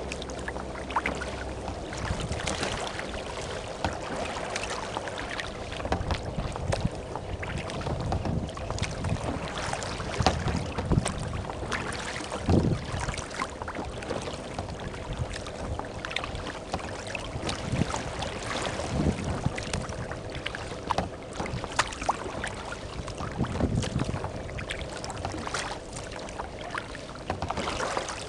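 Choppy water slapping and splashing against a kayak's hull as it is paddled, with irregular splashes and a few heavier slaps, and wind buffeting the microphone.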